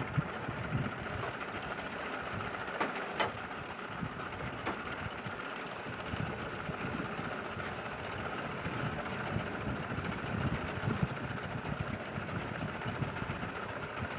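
Mercury outboard motor running steadily at trolling speed, a continuous drone, with a couple of faint clicks about three and five seconds in.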